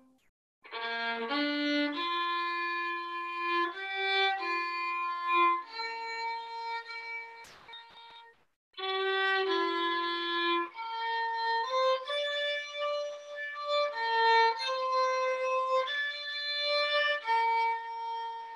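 Instrumental hymn music: a slow single melody line of held notes, stopping briefly just after the start and again about halfway through before resuming.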